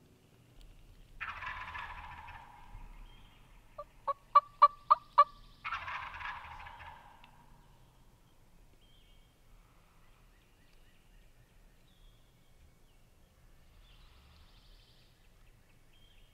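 Wild turkey gobbling: a rattling gobble, then a quick run of six loud, evenly spaced yelps, then a second gobble.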